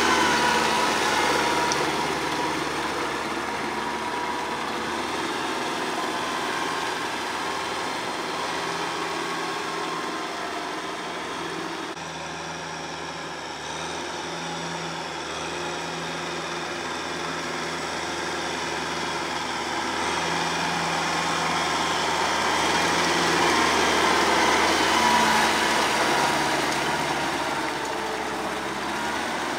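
Kubota M6040SU tractor's diesel engine running steadily under load while it drives a rotary tiller through wet paddy mud. It grows quieter partway through, then louder again near the end.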